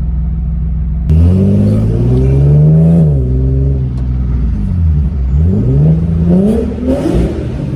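Infiniti G37's V6 with an aftermarket ARK Grip exhaust accelerating hard: a steady low drone, then about a second in the revs climb sharply, drop back near three seconds, and climb again later. The exhaust has leaks at the flex pipe and mid pipe.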